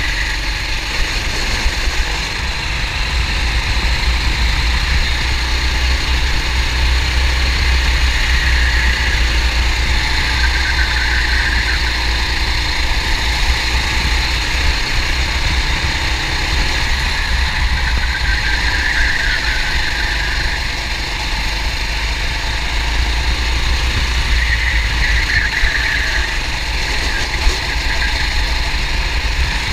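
Kart engine heard from an onboard camera on the kart, running at racing speed, its note swelling and easing several times as the kart accelerates and lifts through the corners.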